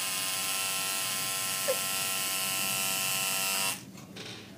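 Electric tattoo machine buzzing steadily as it inks the skin, then cutting off suddenly about three and a half seconds in.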